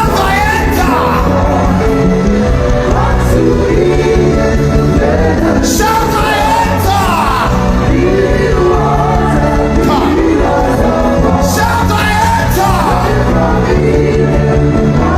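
Worship music with singing: a steady bass and chord backing under voices that slide up and down in pitch.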